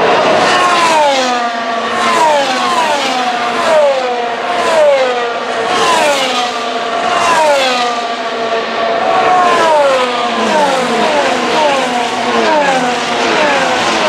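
Formula 1 cars' 1.6-litre turbocharged V6 hybrid engines at high revs passing one after another at speed, each car's pitch dropping as it goes by, in a close train of more than a dozen passes.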